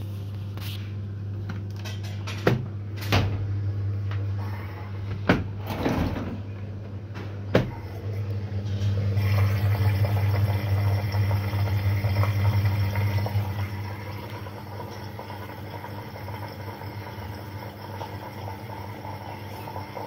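LG dishwasher motor humming steadily, a low mains-frequency buzz, while the machine is stuck on an E1 error with the motor running hot. In the first eight seconds a few sharp clicks and clatters sound as the door is unlatched and swung open.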